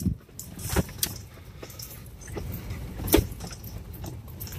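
Cabin noise inside a third-generation Toyota 4Runner: a steady low rumble of the truck and its tyres, with several knocks and rattles. The sharpest knock comes about three seconds in.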